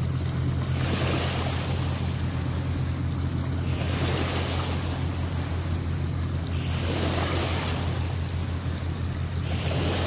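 Small river waves washing up onto a pebble shore, a swell about every three seconds, over a steady low hum.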